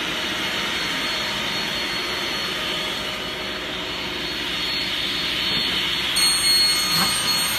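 Straight-line rip saw running with a steady rushing whir and a thin high whine. About six seconds in, shrill high tones join and it grows a little louder.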